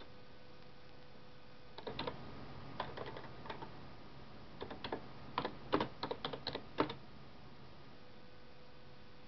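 Typing on a computer keyboard: irregular clusters of key clicks between about two and seven seconds in, over a faint steady hum.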